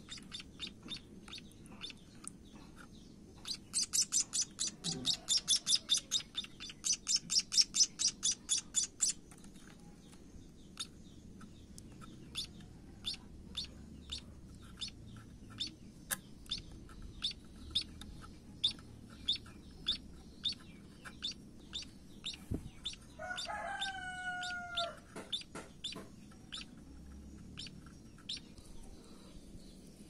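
Scaly-breasted munia fledgling chirping: fast runs of high, thin begging chirps, about five a second, while it is fed with tweezers, then single chirps about once a second. About two-thirds through, a longer, lower call with several tones sounds once for about a second and a half.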